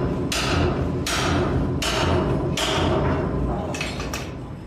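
Sledgehammer driving a steel bolt pin into the holes of a steel beam connection: about five heavy blows, roughly a second apart, each ringing briefly. The blows near the end are weaker.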